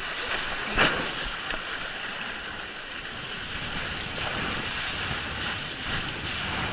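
Strong wind on the microphone over the steady wash of sea water and surf, with one sudden loud hit about a second in.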